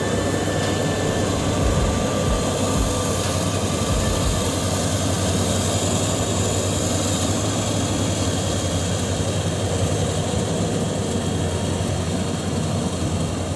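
Maxxi Bimo NDR 102 L rice combine harvester's engine and machinery running steadily: a loud, even mechanical drone.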